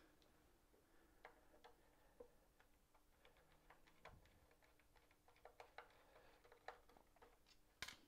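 Faint, irregular small clicks and ticks of a small screwdriver working the screws of a box's hinge, with a sharper click near the end.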